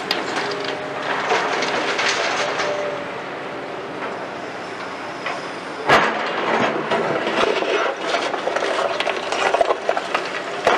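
Hitachi 210 excavator loading demolition rubble: broken concrete clatters from the bucket into a steel dump-truck bed over the steady hum of the diesel engine. About six seconds in, the bucket strikes the rubble heap with a loud bang, then scrapes and digs through broken concrete with a dense clatter.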